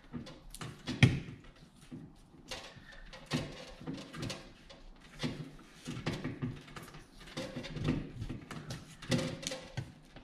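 Irregular clicks, taps and scraping of hands handling cable and a steel wall-box bracket while wire is fed into the drywall.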